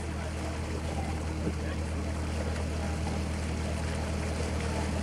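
Narrowboat's inboard diesel engine running steadily under way, a low even hum.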